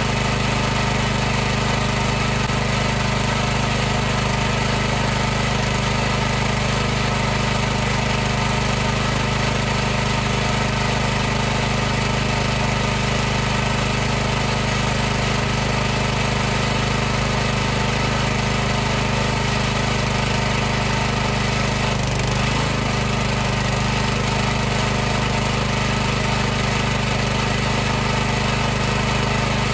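High-pressure washer running steadily: a constant motor and pump hum under a dense hiss, with no change in pitch or speed.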